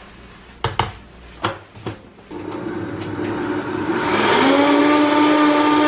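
A few sharp knocks of the spoon and lid against the plastic blender jar. Then a Vitamix blender starts blending a matcha latte of hot plant milk, with a steady hum that gets louder and stronger about four seconds in.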